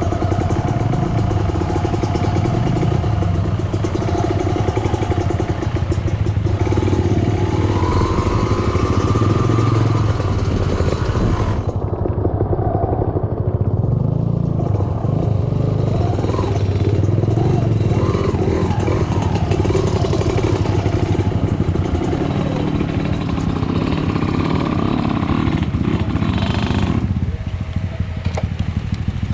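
Trail motorcycle engine running under way, its revs rising and falling repeatedly as the bike is ridden off-road; it eases off and gets quieter near the end.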